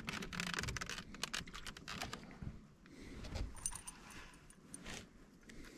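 Light metallic clicking and jingling of fishing tackle being handled: a quick run of small clinks in the first two seconds, then scattered single clicks.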